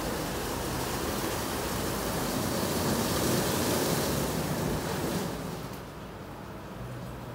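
WashTec Combiwash Silverlight gantry car wash running: rotating side and roof brushes scrub a wet car amid spraying water, a steady rushing sound. It swells in the middle, then drops and loses most of its hiss about five seconds in.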